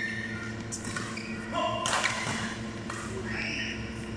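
Badminton rally: sharp racket strikes on a shuttlecock, the loudest about two seconds in, with brief squeaks of court shoes on the floor, in a large echoing hall.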